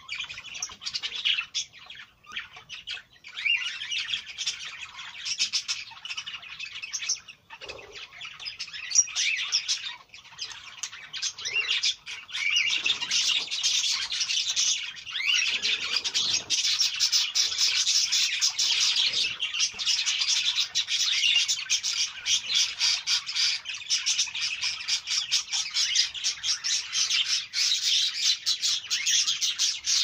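A flock of budgerigars and cockatiels in an aviary chattering, warbling and chirping without pause, the chatter growing fuller and louder about halfway through.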